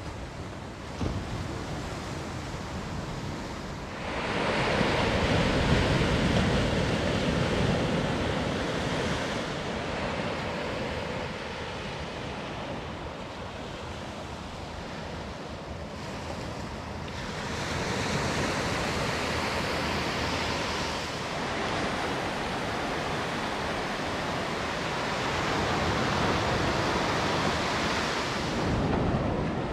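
Small waves breaking on a sandy beach, a steady wash of surf that swells louder several times as waves come in and then falls back.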